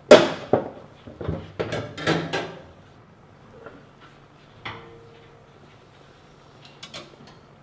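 Metal car fuel tank and its hanging straps clanking and rattling as the tank is handled and taken down from under the car. A quick run of clanks comes first, the first the loudest. A single knock with a short ring follows a little before five seconds in, then a few light clicks near the end.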